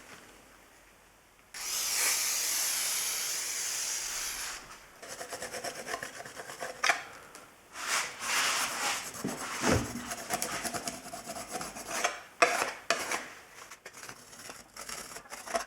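Razor blade scraping old gasket sealing paste off a CA18DET aluminium cylinder head: one long continuous scrape, then a run of short, uneven strokes made with light pressure.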